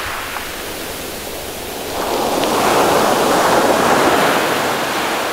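Ocean waves breaking and surf washing up the beach close by. The wash swells about two seconds in as a wave breaks and rushes up the shore.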